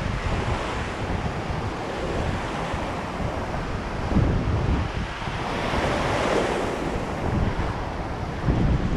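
Ocean surf breaking and washing up the beach at the water's edge, with wind buffeting the microphone in gusts. A wave's wash swells up about six seconds in.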